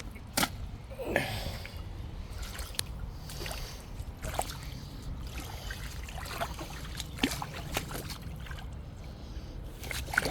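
Water splashing and trickling, with scattered clicks and knocks over a steady low rumble.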